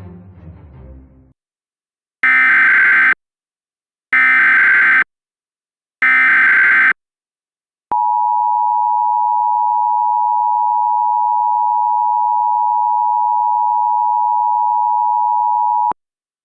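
Emergency Alert System tones: three short bursts of SAME digital header data, each about a second long, then the two-tone attention signal (853 and 960 Hz together) held steady for about eight seconds and cutting off sharply. This is the sequence that opens an EAS broadcast, here a tornado warning.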